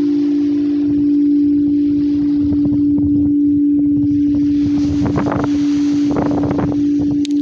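Crystal singing bowl sounding one steady, sustained low tone, with wind buffeting the microphone and gusting harder about five and six seconds in.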